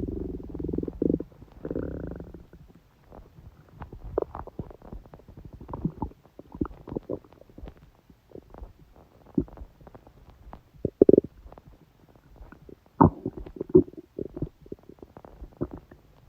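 A woman's stomach gurgling and rumbling from a period stomachache. A drawn-out rumble at the start and another about two seconds in, then scattered short gurgles and pops, the loudest around eleven and thirteen seconds in.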